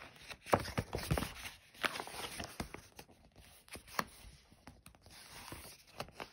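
Picture-book pages being turned and handled: rustling and crinkling of paper with many short taps and flaps.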